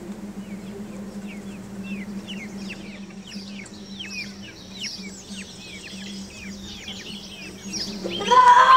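Birdsong sound effect for a forest scene: many quick chirps, each sweeping downward, start about a second in and run on over a steady low hum. Near the end a louder cry cuts in.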